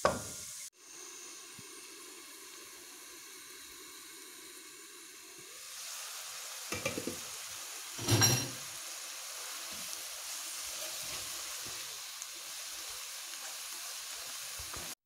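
Chopped fresh greens sizzling in butter in a frying pan as they wilt. The sizzle grows louder about halfway through, with two knocks from stirring, the second the loudest.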